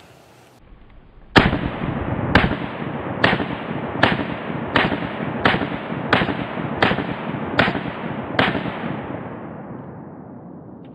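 FN Five-seveN pistol in 5.7x28mm firing ten shots in steady rapid succession, a little under one a second, each a sharp crack with echo rolling off behind it. The echo fades away over the last couple of seconds after the final shot.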